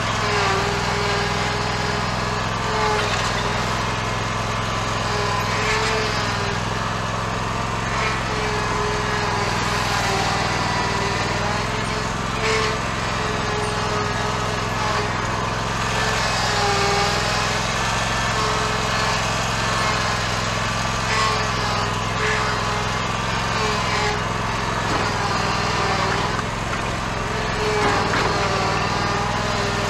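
Stand-on zero-turn mower engine running steadily at a constant speed as the mower drives along.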